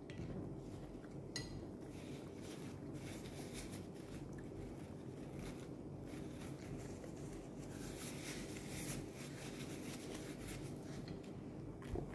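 Faint eating sounds: chewing, and fingers picking food off a plate, with a few light clicks, over a steady low room hum.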